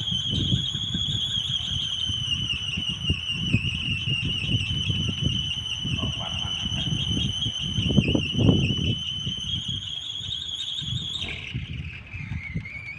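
Kolecer, a wooden wind propeller on a pole, spinning in strong wind with a steady high whine whose pitch wavers, drops suddenly about eleven seconds in, then climbs back. Gusty wind rumbles on the microphone throughout.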